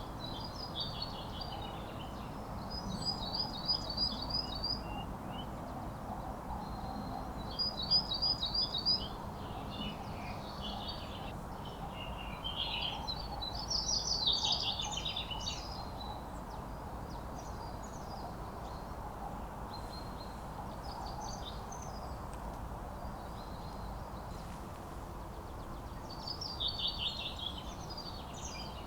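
Songbirds singing in short high phrases every few seconds, some a quick run of repeated notes, the loudest about halfway through, over a steady background noise.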